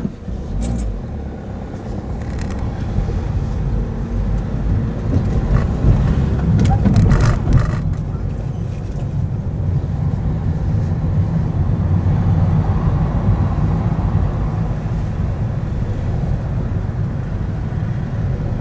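Car driving slowly, its engine and tyre noise heard from inside the cabin as a steady low rumble, with a few brief knocks in the first half.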